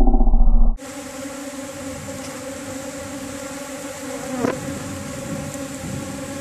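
Many leafcutter bees buzzing steadily in several pitches, with one bee passing close to the microphone for a brief louder buzz about four and a half seconds in. Under a second in, a loud muffled low hum cuts off abruptly before the buzzing.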